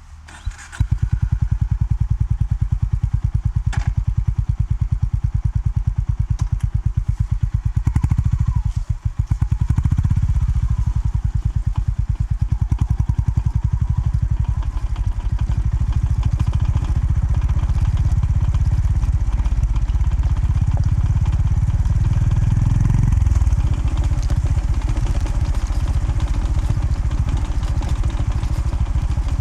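Honda GB350S's air-cooled single-cylinder engine, coming in loud about a second in and running with an even low thump. Its pace dips and picks up again around nine seconds in as the bike rides on.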